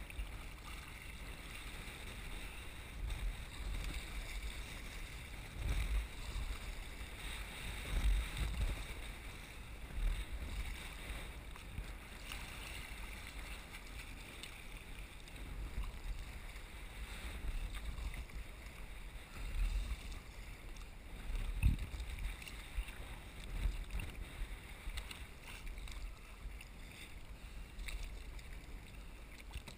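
Water splashing and rushing along a sea kayak's hull as it is paddled through choppy water, with gusts of wind rumbling on the microphone and one stronger gust about two-thirds of the way through.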